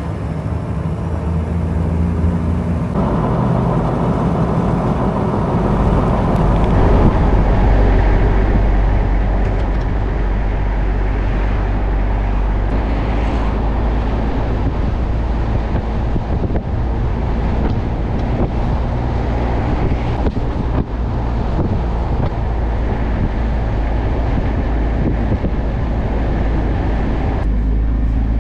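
Toyota Hilux driving on the open road: a steady engine drone under road and wind rush. The rush swells about three seconds in and covers the engine, then drops away near the end, leaving the engine drone.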